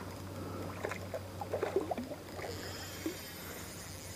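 Light splashes and water gurgles from a small common carp thrashing at the surface on the line near the bank. Faint insect chirping joins in the second half.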